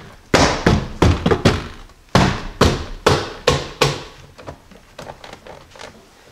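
Jeep Cherokee XJ plastic door trim panel being struck by hand to snap its retainer clips into the door: a quick run of about nine firm thunks in the first four seconds, then a few lighter taps.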